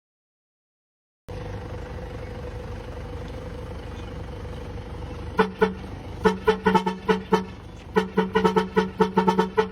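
A vehicle's long air horn, four feet long, sounding in many quick short toots in a fast, uneven rhythm. The toots start about five seconds in, over a steady hum that begins after about a second of silence.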